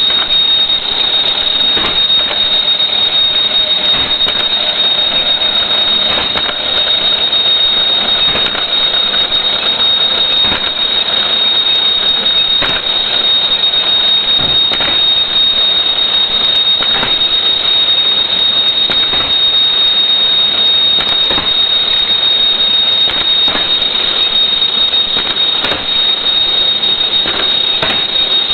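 Surgical mask ear-loop tie-on machine with ultrasonic welding running: a constant high-pitched whine over a mechanical clatter, with sharp irregular clicks from its mechanism.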